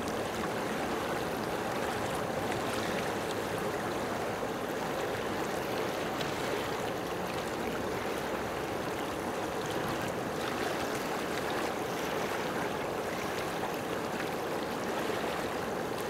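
Steady rush of moving water, an even wash of noise without breaks.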